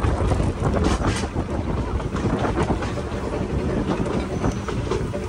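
Narrow-gauge railway carriage in motion, heard from on board: a steady rumble of wheels on the track, with a few sharp clacks about a second in.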